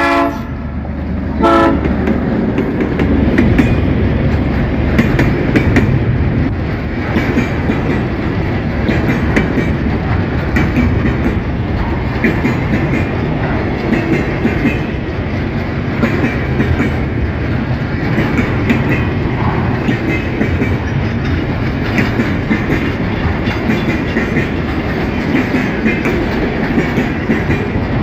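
EMD GR-12W diesel-electric locomotive sounding a short horn blast about a second and a half in, then running past at speed hauling a container train. Its engine rumble is joined by a steady clickety-clack of wheels over the rail joints.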